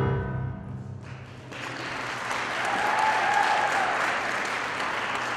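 The last held chord of the music fades out in the first second, then an audience applauds, with a single cheer rising above the clapping about three seconds in.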